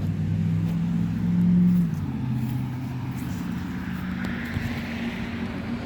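Running central air conditioner condensing units: a steady low compressor hum with fan noise, loudest for the first couple of seconds and then easing.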